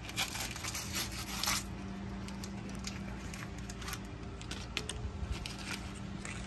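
Trading-card pack wrapper crinkling and tearing as it is ripped open by hand, in scratchy rustling bursts that are densest in the first second and a half and then come in scattered rustles as the cards are taken out.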